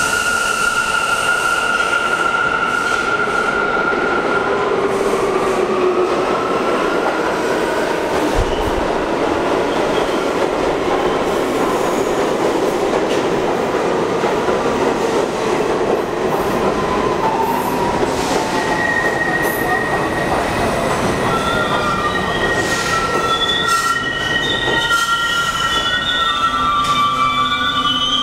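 R68 subway train running into an underground station and slowing to a stop: a steady loud rumble of steel wheels on the rails, with a thin high squeal over the first few seconds and several high squealing tones over the last third as it slows.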